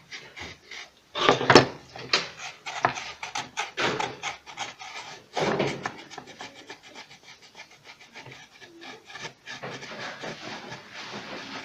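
Irregular rubbing and scraping strokes against the pump housing as the groove where its rubber O-ring seats is cleaned by hand, with the loudest strokes about a second in and again about halfway through.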